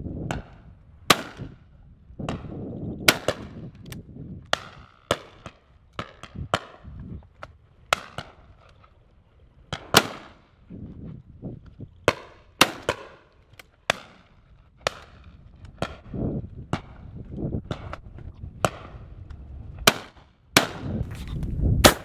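Shotguns firing again and again from several guns: dozens of sharp reports at irregular intervals, some close and loud, many fainter and further off, often two in quick succession.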